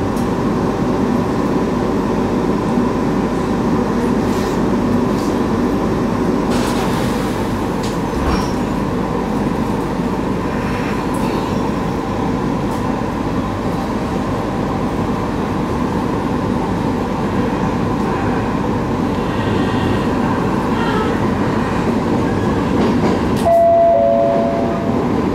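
Interior of a JR East 701 series electric train running between stations: steady rumble of wheels on rail with a constant motor hum. Near the end a two-note chime sounds, high then lower, from the train's announcement system.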